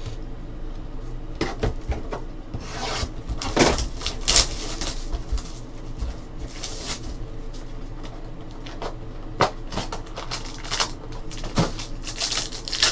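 Hands handling trading card packs and their plastic wrapping: crinkling and rustling, with several sharp clicks and taps of cards and plastic card holders against the table.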